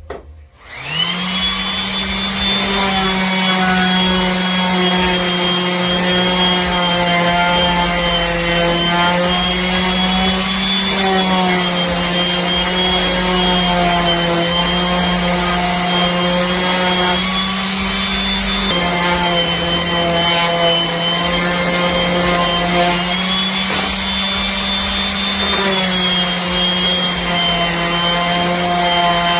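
GALAX PRO 280W 5-inch electric random orbital sander switched on, spinning up with a rising whine about a second in, then running steadily. Its pitch dips and recovers slightly a few times.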